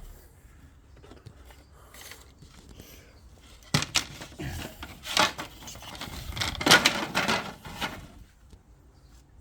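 Quiet handling noise, then a sharp knock about four seconds in followed by a few seconds of clattering, scraping and rubbing as objects are moved and handled.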